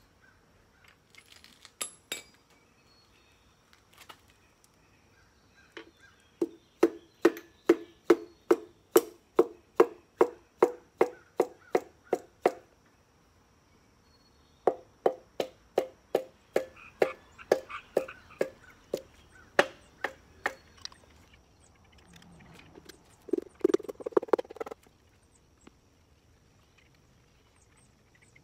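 Hammer handle tapping a piston down through a ring compressor into the engine block's cylinder bore. There are two runs of quick, even knocks, about three a second, each with a slight ring, then a shorter, denser flurry near the end.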